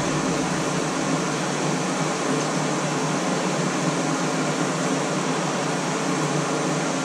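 Steady fan-like rushing noise with a faint low hum, unchanged throughout.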